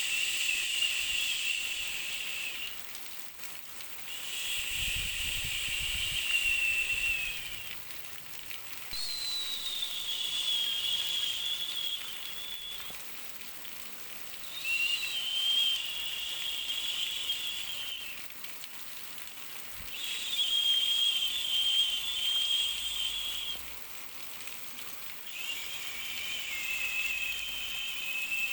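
Soothing white noise for a baby: repeated bursts of hiss, each carrying a high, slightly wavering whistling tone. There are about six bursts, each about three seconds long, with short quieter gaps between them.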